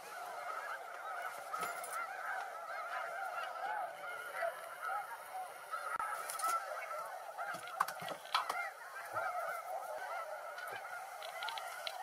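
A large flock of snow geese calling continuously, many high honks overlapping into one steady chorus, with a few brief knocks in the middle.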